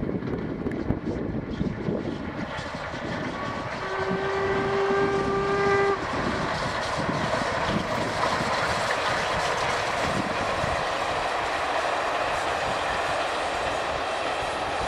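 LMS Black 5 steam locomotive working a passenger train, its exhaust beating, sounds its whistle once for about two seconds, about four seconds in; then the engine and coaches run past close by with a steady rush of wheel and steam noise.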